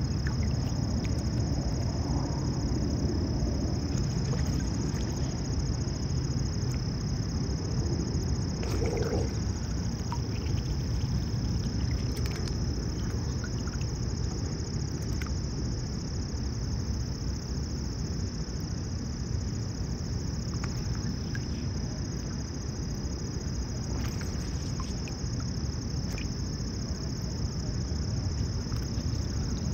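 Insects chirring steadily in a high, unbroken trill over a constant low rumble, with a few faint ticks now and then.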